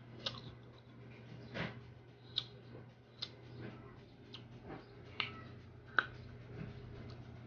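Close-up mouth sounds of someone chewing crisp green Indian mango: faint wet crunches and lip smacks, a string of sharp clicks about once a second.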